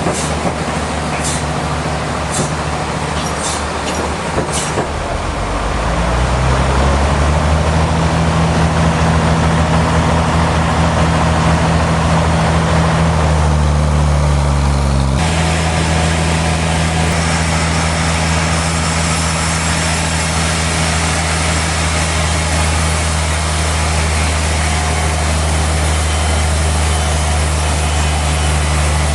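Sawmill machinery running: a steady engine drone with a few sharp clicks in the first few seconds. It grows louder and deeper about six seconds in, and changes abruptly about fifteen seconds in before running steadily on.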